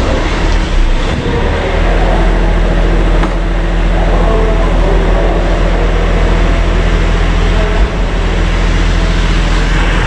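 Steady, loud low machine hum with several held low tones, and a short bump about eight seconds in.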